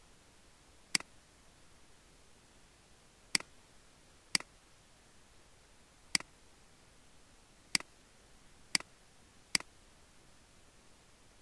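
Computer mouse button clicking, seven single sharp clicks at uneven intervals over a faint background hiss.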